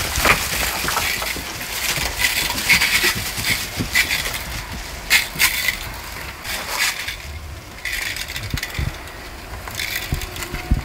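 Hand pump pressure sprayer giving repeated short hissing squirts at uneven intervals as it is sprayed onto sheep and goats, with rustling in the straw underfoot.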